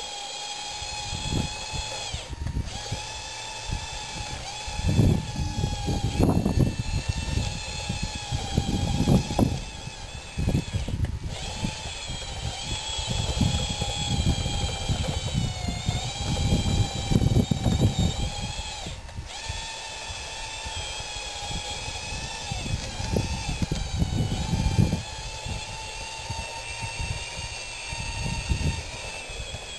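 Radio-controlled scale bulldozer's electric drive whining as it crawls and pushes dirt, the pitch shifting up and down with throttle and cutting out briefly three times. Irregular, gusty low rumbling runs underneath.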